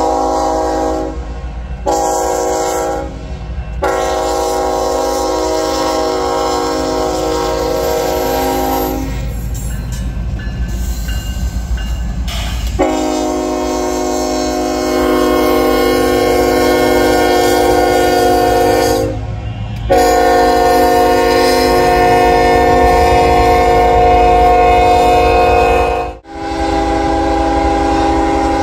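Freight locomotive air horn sounding a string of long blasts with short breaks, the warning for a road grade crossing, over the rumble of the passing train. About nine seconds in the horn stops for a few seconds, leaving only the train's rumble and rail noise. Near the end the sound cuts off sharply, and a horn then starts again.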